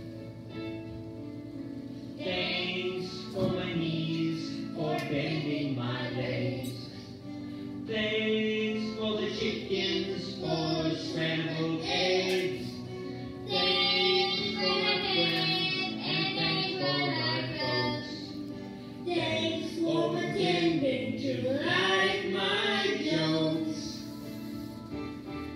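A group of young children singing a song together as a choir, with steady instrumental accompaniment beneath the voices.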